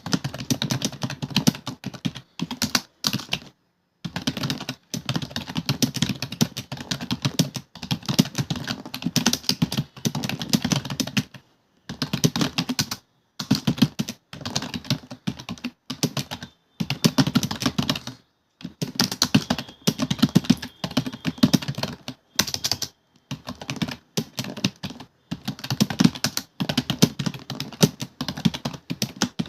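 Fast continuous typing on a computer keyboard: rapid key clicks in long runs, broken by brief pauses every few seconds.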